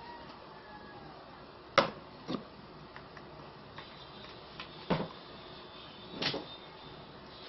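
Hard plastic knocks and clicks from a homemade PVC-pipe airgun being handled, its end cap worked and the gun swung round. There are four separate knocks, the loudest about two seconds in.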